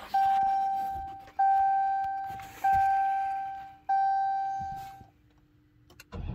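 Dodge SRT Hellcat's instrument-cluster warning chime sounding four times, about a second and a quarter apart, each tone ringing and fading, with the car not yet started. Near the end a low rumble begins as the engine starts to crank.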